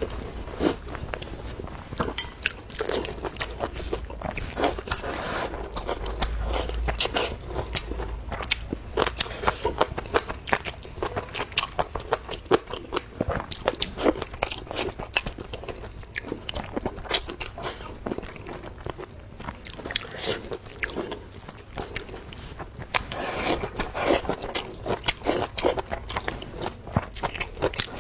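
A person chewing and biting food close to the microphone: continuous irregular wet clicks and crunches of chewing.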